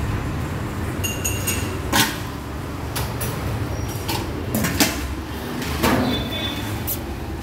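Steel lids knocking and clinking against glass biscuit jars a few times, one with a short metallic ring, over a steady low background rumble.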